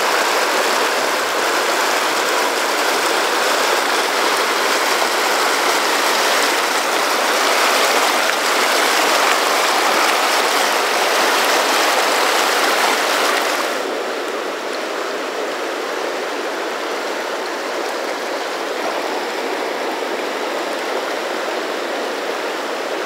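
Fast rocky river rushing over boulders in pocket water: a steady, loud whitewater rush. A little past halfway it steps down to a softer, duller rush.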